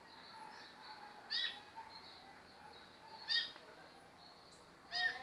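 Squirrel cuckoo calling: three short calls, each with several pitches stacked together, repeated about every two seconds.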